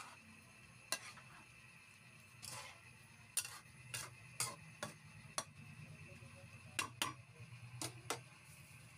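Metal spoon clinking and scraping against a stainless steel wok while stirring sliced young jackfruit in liquid: about a dozen irregular sharp clicks over a low steady hum.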